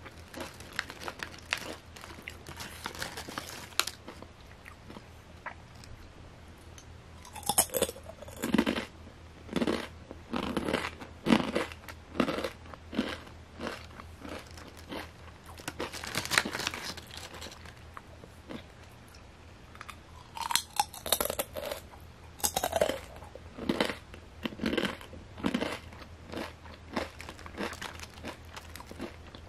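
A person chewing Calbee Kamaage kettle-cooked potato chips: irregular runs of crisp crunching that come and go. The loudest runs fall about a quarter of the way in and again past two-thirds.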